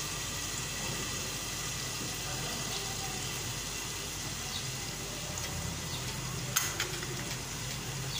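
Tomato-and-spice masala sizzling faintly and steadily under the lid of an aluminium pot on a low flame, over a low steady hum. A single click comes about two-thirds of the way through.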